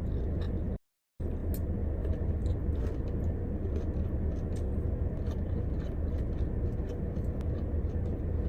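Steady low rumble of a parked car running with the heater on, with scattered light ticks and taps over it. The sound cuts out completely for a moment about a second in.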